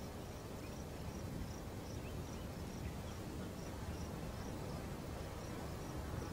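An insect chirps steadily, a short high chirp about two to three times a second with a brief pause late on, over a low, even rumble.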